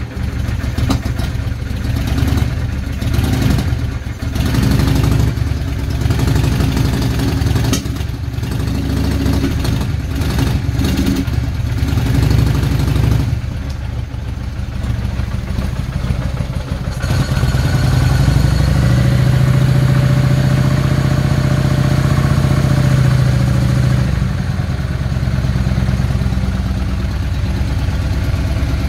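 Motorcycle engine running after being brought back to life following winter storage, the revs rising and falling. About two-thirds of the way in it is held at higher revs for several seconds, then drops back.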